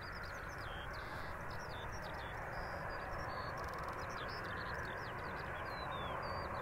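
Distant CFM56 jet engines of a Boeing 737 running at low thrust as the airliner rolls along the runway: a steady whooshing hum that grows slightly louder. Small birds chirp and twitter in high, quick notes all the while.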